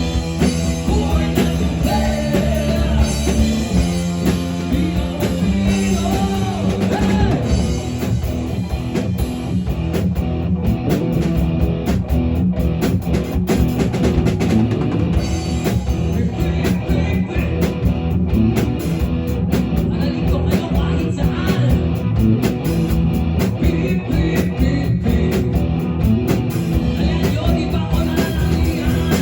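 Rock band playing: drum kit and guitar, with a singer's voice over the first several seconds, after which the instruments carry on without vocals.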